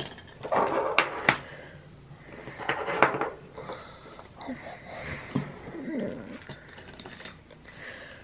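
Paper sticker sheets rustling and sliding on a desk as they are handled, with small taps and clicks. The loudest rustles come about a second in and again around three seconds.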